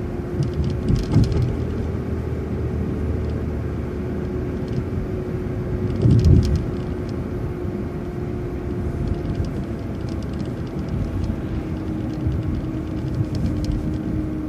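Transit bus driving, heard from inside: a steady low drivetrain rumble with a constant hum, a few faint clicks, and one heavier low thump about six seconds in.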